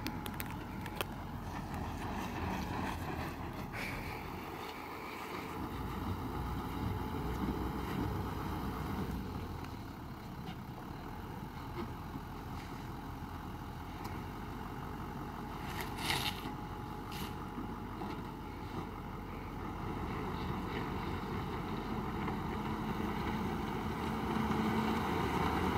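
Toyota LandCruiser 200 Series driving slowly over a rutted, muddy dirt track, its engine running under light load and its tyres working through mud and stones. There are a couple of sharp clicks of stones about two-thirds of the way in, and the engine note rises near the end.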